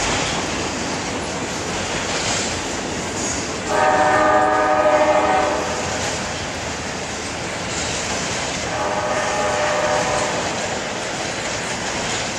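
Norfolk Southern intermodal freight train's cars rolling steadily across a steel girder bridge, with a locomotive horn sounding twice: a long, louder blast about four seconds in and a shorter, fainter one near nine seconds.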